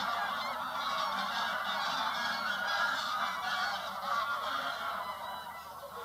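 A large flock of geese calling together: a dense, continuous chorus of many overlapping honks, easing a little near the end.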